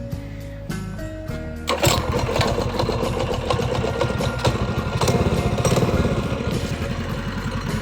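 Minibike's small single-cylinder engine coming in about two seconds in over background music, then running with a rapid even firing beat, a little louder from about five seconds in.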